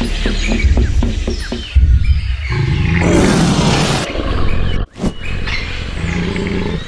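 Loud intro sound design: a deep rumble with a noisy swell about three seconds in, cut off abruptly just before five seconds, then carrying on more quietly.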